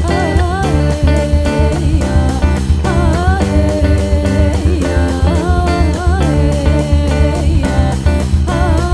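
Jazz band playing live: archtop electric guitar, bass, and a drum kit with frequent cymbal strokes, under a melody that slides between notes over a strong steady bass line.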